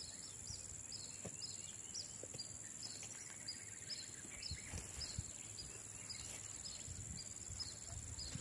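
Outdoor insect chorus: a steady high-pitched drone, with a short chirp repeated about two to three times a second. Faint rustles and knocks of peanut plants being handled sit underneath.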